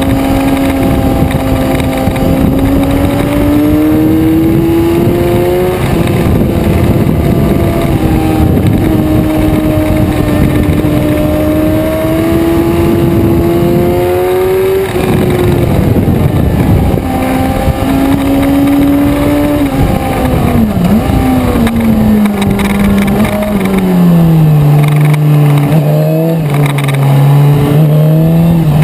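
Suzuki sport motorcycle engine under way, heard from the bike itself. The revs climb twice with a sudden drop between, as on an upshift, then fall in steps to a low steady note for the last few seconds as the bike slows.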